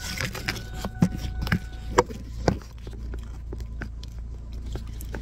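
Handling noise of a phone being moved and repositioned: about five sharp knocks and clicks in the first two and a half seconds, then a few faint ticks, over a steady low rumble.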